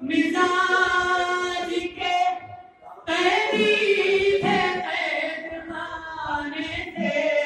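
A man's solo voice chanting a madah, a devotional praise poem, in long, held, melodic phrases, with a short break between phrases a little before three seconds in.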